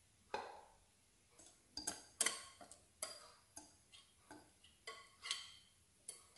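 Wire whisk tapping and scraping against a glass mixing bowl as chocolate cake batter is scraped out of it: a run of about a dozen light, irregular clinks and ticks, the loudest about two seconds in.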